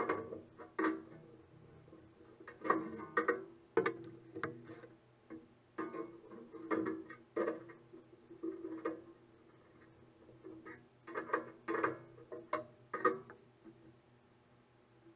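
Irregular metallic clinks and knocks, some ringing briefly, from a circular saw blade and a spanner being handled on a combination table saw.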